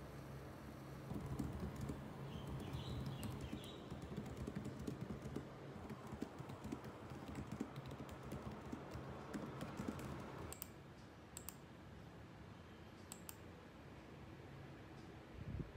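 Typing on a laptop keyboard: a quick, uneven patter of keystrokes that stops about two-thirds of the way through, leaving only a few single key clicks.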